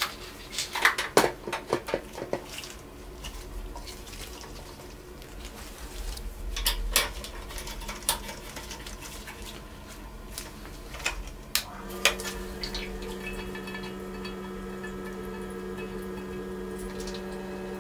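Metal parts of a Grainfather brewing system clinking and knocking as the recirculation arm is taken off and the counterflow chiller is fitted. About twelve seconds in, the unit's pump starts and runs with a steady hum, circulating the cleaning water through the chiller.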